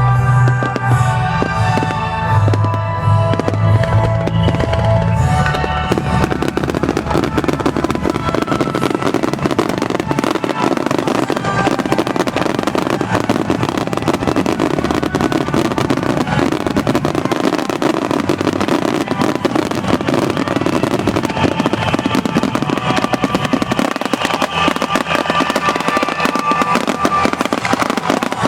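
Fireworks display: a dense, rapid barrage of bursts and crackling shells, thickening about six seconds in and keeping on without a break. Music plays alongside it.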